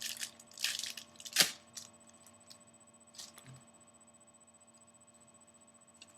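Trading cards being handled and flipped through, with short rustling slides and one sharp snap about one and a half seconds in; after that only a faint steady background hum.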